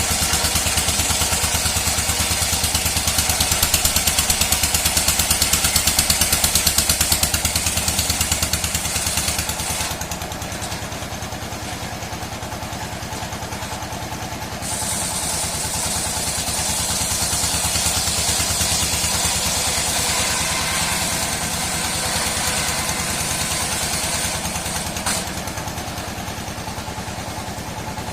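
Old sawmill running, its engine giving a steady fast-pulsing drone, while the saw cuts dry mahogany with a high rasping noise. The rasping drops away for about five seconds in the middle, then comes back.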